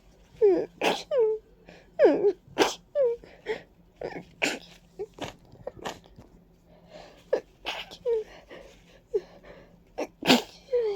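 A person sneezing over and over in a fit, wet and congested, with short voiced gasps that fall in pitch between the sharp sneeze bursts. The uploader puts the congestion down to ragweed and dust.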